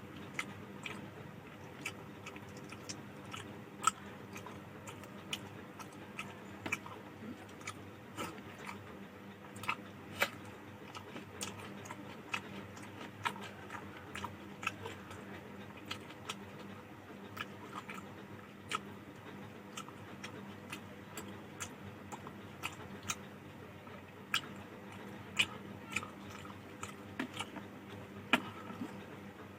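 Close-miked mouth sounds of a person eating rice and fish curry: chewing with irregular wet clicks and smacks, a few to the second. A faint steady hum lies underneath.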